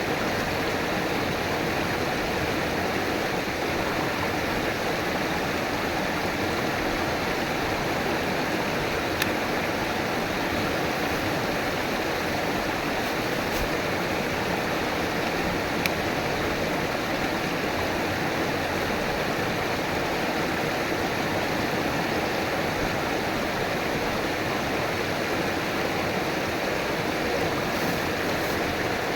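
River water flowing steadily over rocks, a constant rushing and burbling with a couple of faint splashes or ticks partway through.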